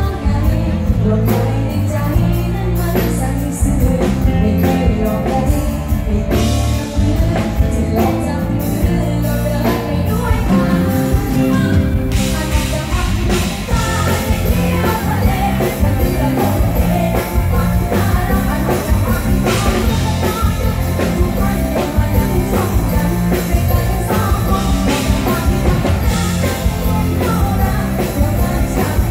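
A woman singing live into a microphone over a loud amplified band with drums and a steady beat.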